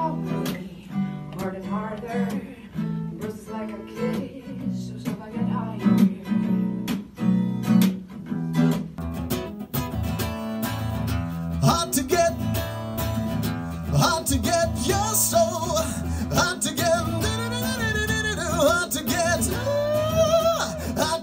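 Guitar chords strummed in a steady rhythm for the first several seconds. Then a man sings with acoustic guitar strumming through a PA, his voice entering a few seconds after the change.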